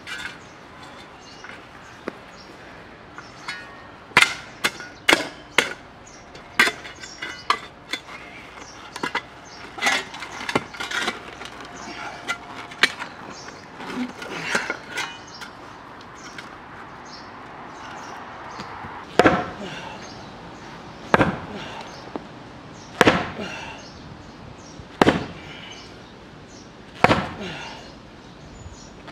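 Shovel blade and sledgehammer striking a fence post's concrete footing to break it up. First comes a run of sharp, irregular clanks and scrapes. In the second half there are heavy single blows about two seconds apart.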